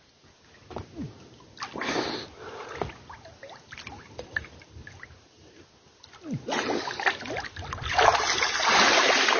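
Water splashing from a person swimming: a short splash about two seconds in, then heavier, continuous splashing of arm strokes through the last three seconds, loudest near the end.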